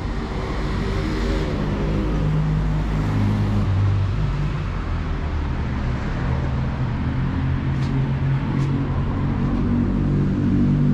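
City street traffic with motor vehicle engines running close by. One engine's note falls during the first couple of seconds, then a steady engine hum carries on over the traffic rumble.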